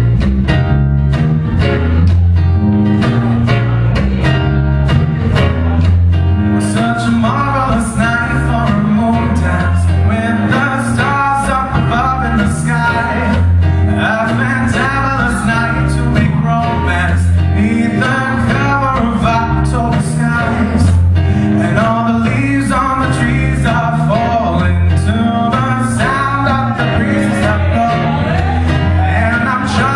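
A live band playing a country-flavoured song on strummed acoustic guitar and electric bass guitar, with a man's lead vocal coming in about seven seconds in.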